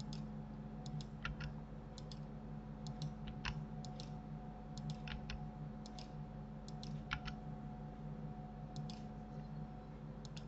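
Computer mouse and keyboard clicks, irregular and often in close pairs, over a steady low hum.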